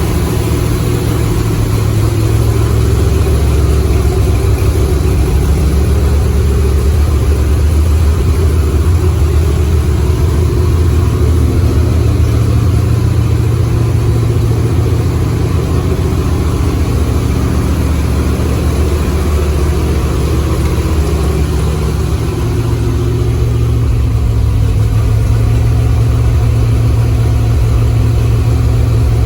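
1972 Chevrolet C10's 454 big-block V8 idling steadily with a deep, even note.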